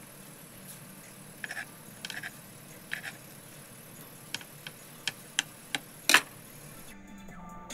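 Kitchen knife slicing a red bell pepper into rings on a wooden cutting board: about ten sharp, irregular taps of the blade striking the board, the loudest about six seconds in. Music starts near the end.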